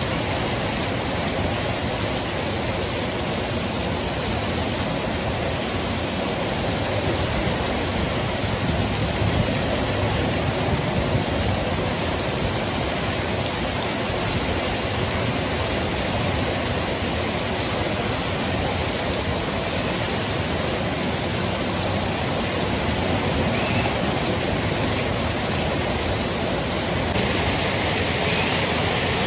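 Heavy rain falling on paving, a steady hiss that turns brighter near the end.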